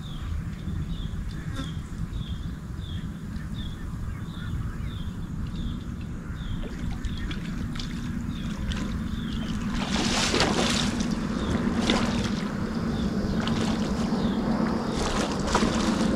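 Steady low drone of a passing motorboat's engine, growing louder from about halfway. Through the first half a short high chirp repeats about twice a second, and near the end there is splashing at the water's edge as a fish comes in.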